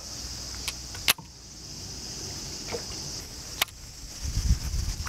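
Steady high-pitched cicada chorus in summer heat, with sharp clicks about a second in and again after three and a half seconds, and low rumbling thumps near the end.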